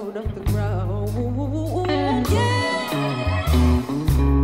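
Live band performance: a woman sings long, wavering notes with heavy vibrato into a microphone, backed by held bass guitar notes, guitar, drums and keyboard.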